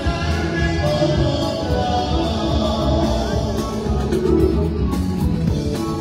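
Live band playing with a singer, drum kit and guitar.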